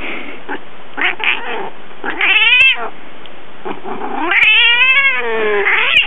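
An angry cat yowling: a short wailing call about two seconds in, then a long drawn-out yowl that rises and falls, over a steady background hiss.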